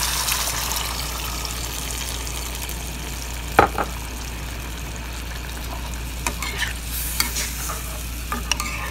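Chicken in a hot pan sizzling steadily as milk goes in over it. A single sharp knock of a spatula against the pan a few seconds in, then light clinks and scrapes as the mixture is stirred near the end.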